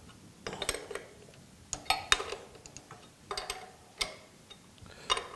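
Ratchet wrench clicking in about five short bursts while tightening the knife-clamp bolts in a planer's cutterhead.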